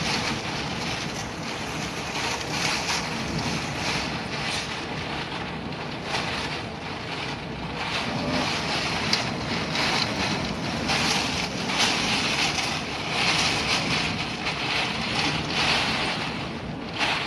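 Hurricane wind blowing in gusts that swell and ease every few seconds, with heavy wind noise on the microphone.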